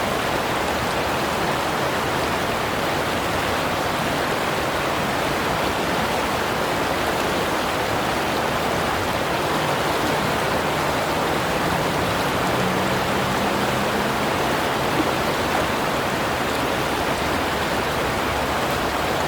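Clear Creek's rushing mountain water making a steady, even roar.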